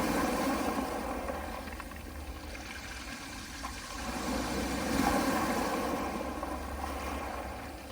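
Soft sea waves washing onto a pebble beach: the surf swells to a peak about five seconds in and eases off again.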